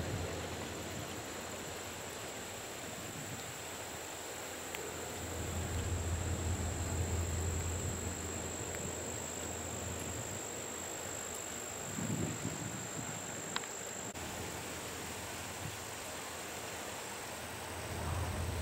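Insects chirring in one steady high tone that steps slightly higher about three-quarters through, over open-field background noise with a low rumble that swells and fades.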